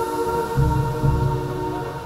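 Dark electronic music from modular synthesizers: a drone of several steady held tones, with a pair of low bass pulses about halfway through.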